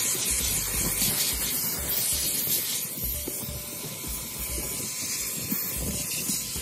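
HART 10-gallon wet/dry shop vacuum running, its nozzle drawing air with a steady hiss as it is scrubbed back and forth over car floor carpet, with scraping and rubbing underneath.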